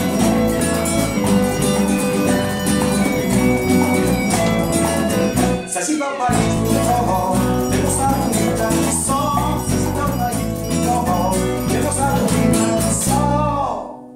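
A band plays a song. A man sings over acoustic and electric guitars, bass, drum kit and hand percussion. The band drops out briefly about six seconds in, and the music fades away just before the end.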